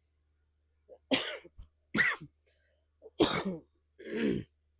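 A woman sick with the flu coughing four times, about a second apart, the last cough voiced and throaty.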